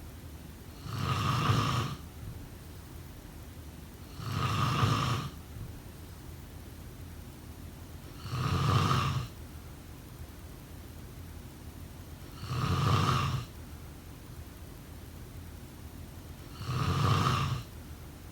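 A sleeping person snoring: five snores, each about a second long, coming regularly about every four seconds.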